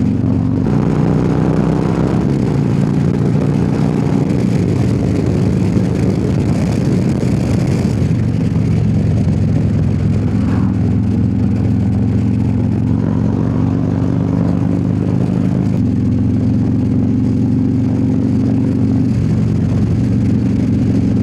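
Harley-Davidson Road Glide's V-twin engine running while ridden on the highway, its pitch rising and falling a few times with throttle and gear changes.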